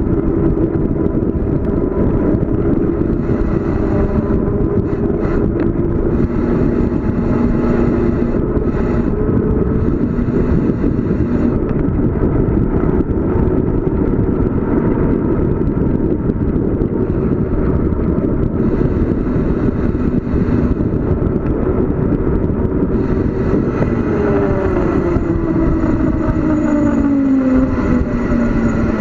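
Wind rushing over the microphone of a bicycle descending at speed. A steady tone runs underneath and drops in pitch over the last few seconds, and higher hissing comes and goes.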